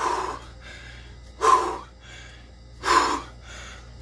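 A man's hard, sharp breaths during dumbbell curls, three of them about a second and a half apart, one with each rep.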